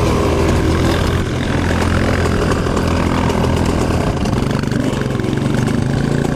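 Dirt bike engine running steadily while riding over a dirt track, with a change in the engine note about four seconds in.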